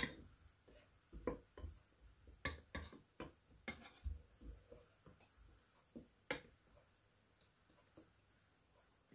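Wooden spatula stirring butternut squash chunks in a stainless steel pot: a string of soft knocks and scrapes of wood against the pot, stopping about two-thirds of the way through.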